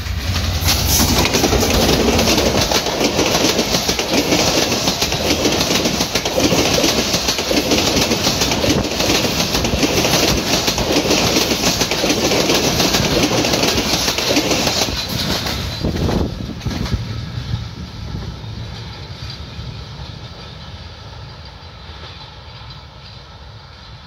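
Diesel-hauled intercity passenger train passing close by: the locomotive and a long line of coaches run past with a loud, steady clatter of wheels on rails. The noise dies away gradually from about 16 seconds in as the last coach moves off down the line.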